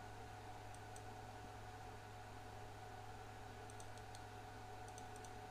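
Faint computer mouse clicks, a few short ones, some in quick pairs, over a steady low electrical hum.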